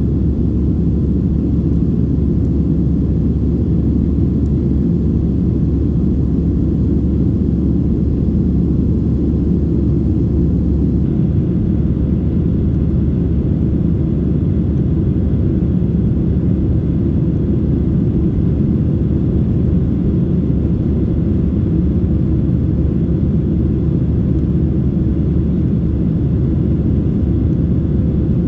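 Steady, even cabin rumble inside a Boeing 737-600 in flight: the CFM56-7B engines and airflow make a constant low noise.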